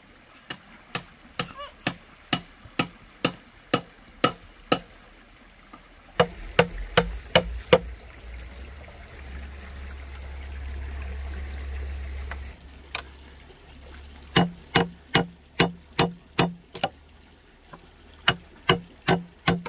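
Runs of sharp knocks, about two a second, as a hand tool strikes wood, with short pauses between runs. Water trickles and pours through the middle stretch.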